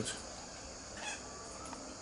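Quiet aviary ambience: a few faint bird calls about a second in, over a low steady high-pitched hiss.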